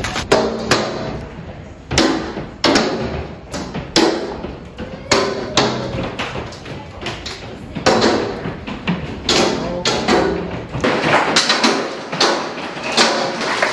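Large hailstones hitting the house in a violent hailstorm: an irregular run of hard knocks and thuds over a steady hiss of falling hail, very loud, turning to a denser rattle near the end.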